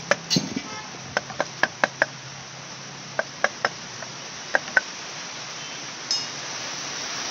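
Plastic mallet tapping the aluminium alternator end cover of a Honda EP1000 generator to loosen it off the housing: about a dozen sharp, slightly ringing knocks in quick groups of two to five. A short clink about six seconds in as the cover comes free.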